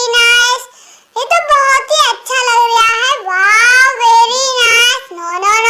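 A high, childlike voice singing in short phrases, with the pitch sliding up and down and a brief pause about a second in.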